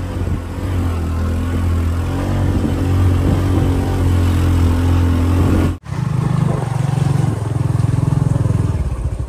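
Motorbike engine running steadily. About six seconds in the sound cuts off for an instant, then a motorbike engine continues with a fast pulsing beat.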